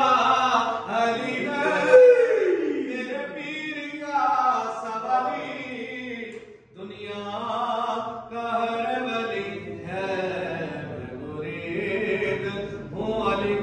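Devotional chanting of a manqabat, a song in praise of Ali, in long sung lines with a short pause about two-thirds of the way through.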